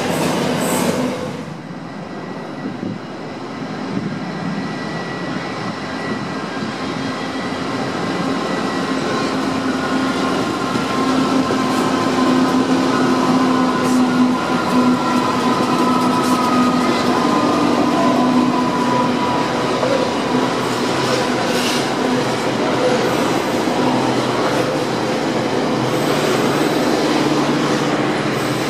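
Intermodal freight trains passing: the last wagons of one train rumble by, the sound dips about two seconds in, then Pacific National NR class diesel-electric locomotives approach and pass with a steady engine drone and a whine that slowly falls in pitch, followed by container wagons rolling and clattering past.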